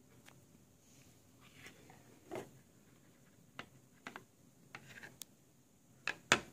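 Hard plastic coin slab handled on a wooden table: scattered light clicks and taps, with two sharper knocks close together near the end.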